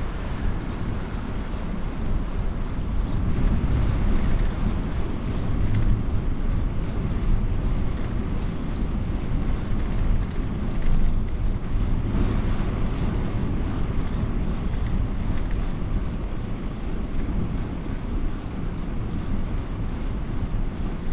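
Wind buffeting the microphone of a camera riding along on a moving bicycle: a steady, low rumbling noise that swells and eases.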